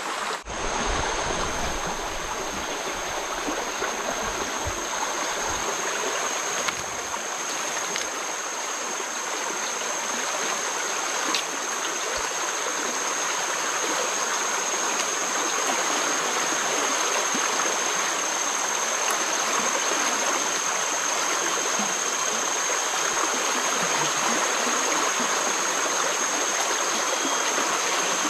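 Fast-flowing floodwater of a swollen river rushing past the bank, a steady, even wash of water noise.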